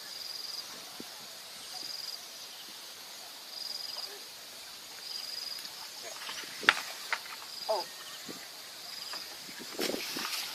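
An insect chirping in short high trills, one about every one and a half seconds, over quiet outdoor background noise. A sharp click comes about two-thirds of the way through, and a few soft knocks near the end.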